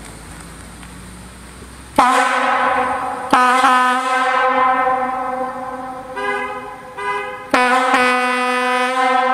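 Kovotvar European locomotive air horn blown through a solenoid valve in several sudden blasts starting about two seconds in, the last held past the end; around the middle its tone briefly changes to a higher, broken sound. It is fed air above its 5–6 bar design pressure with no regulator, which the owner blames for its funky sound at first.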